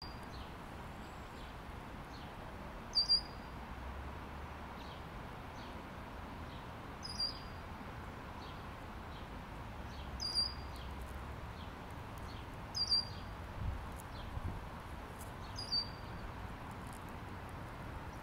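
Songbirds calling: one bird gives a short, sharp call five times, about every three seconds. Fainter quick chirps from other birds repeat about once a second between its calls, over a steady background hiss.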